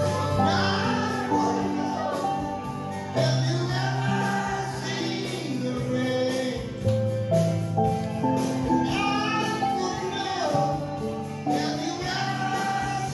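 A song playing, with singing over instrumental backing: held bass notes and a steady beat.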